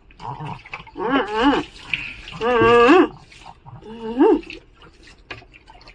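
Pug whining three times in drawn-out calls that waver in pitch; the middle one is the longest and loudest.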